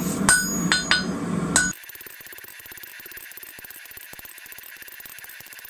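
A hammer strikes red-hot steel bar stock on an anvil a few times, each blow ringing, as the blacksmith squares off the end of the bar. About a second and a half in, the sound drops abruptly to a faint hiss.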